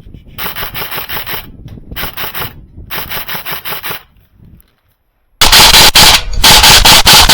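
Airsoft electric gun firing full-auto bursts: three short bursts of rapid clicking in the first four seconds. After a brief silence about five seconds in, a much louder, distorted stretch of rapid firing follows.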